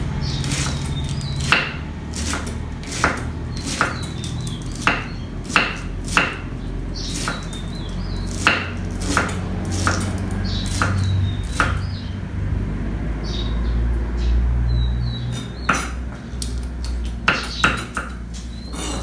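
Kitchen knife slicing cabbage into thin shreds on a round wooden chopping board: sharp knocks of the blade on the board about once a second, with a short pause after the middle, over a steady low hum.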